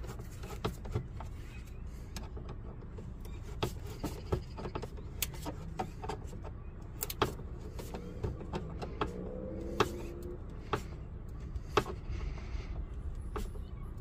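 Irregular sharp clicks of a screwdriver turning the worm-drive screw of a jubilee clip on a car's air intake pipe, over a low steady background rumble.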